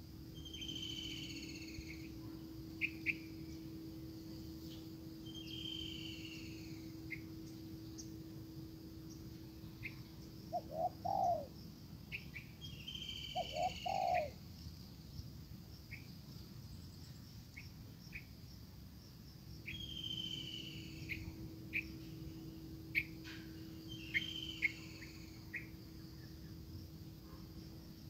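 A small songbird repeating a short falling chirp every few seconds, with sharp ticks in between. Twice near the middle come brief low dove coos, the loudest sounds here. A faint steady hum runs underneath.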